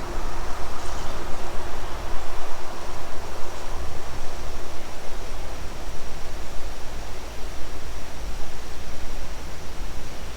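Steady rush of creek water running high and fast after several days of rain, an even hiss with a low rumble underneath.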